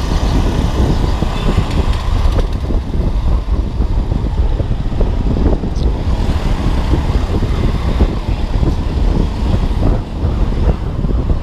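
Riding noise from a Honda Beat scooter moving through street traffic: a loud, steady low rumble of wind on the microphone and the running scooter.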